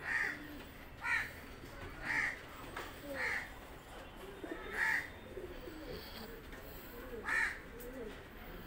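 A crow cawing six short times, spaced a second or more apart, with pigeons cooing faintly and low underneath.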